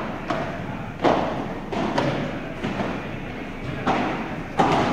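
Padel rally: a padel ball struck back and forth with rackets and bouncing on the court, a sharp hit about once a second, each ringing on in the large indoor hall.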